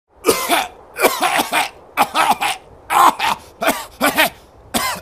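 A man coughing in a hard fit, cough after cough, about two a second.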